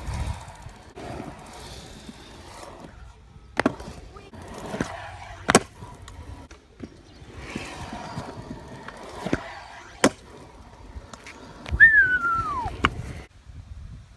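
Stunt scooter wheels rolling and carving over concrete skate-park ramps. Several sharp clacks of the scooter striking the concrete are heard. Near the end there is a short, falling whistle-like squeal.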